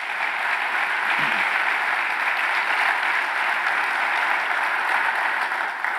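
Congregation applauding steadily, dying away near the end.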